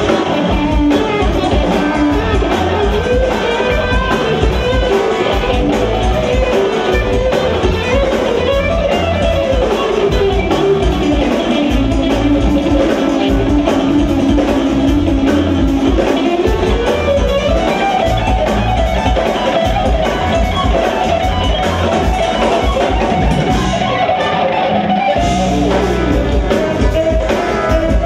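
Jazz-fusion band playing live: electric guitar, electric bass, keyboards and drum kit. A lead line of long held notes drops lower around the middle, then jumps higher and holds for several seconds.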